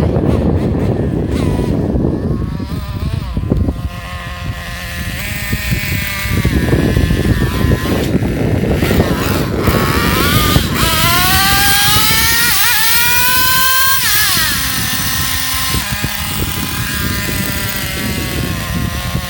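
Traxxas Revo nitro RC truck's small glow-fuel engine running and revving, its high pitch rising and falling with the throttle. About two-thirds through it revs up for a few seconds, then drops back to a steadier, lower run near the end.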